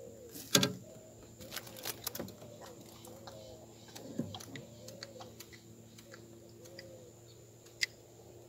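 A dove cooing in a regular series of soft rising-and-falling notes, about one a second, with sharp handling clicks and knocks in the boat. The loudest knock comes about half a second in, and a single sharp click comes near the end.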